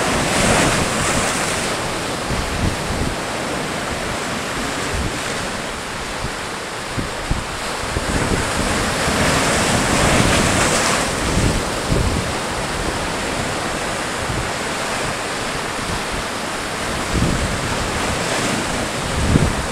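Sea surf breaking and washing over rocks in a continuous rush, swelling louder about a second in and again around ten seconds in, with wind buffeting the microphone.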